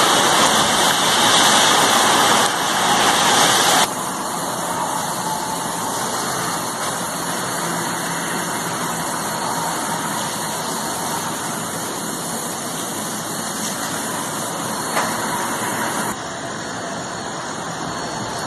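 Steady rushing noise of hurricane wind and rain, with no distinct tones or knocks. It drops abruptly in level about four seconds in and again near the end.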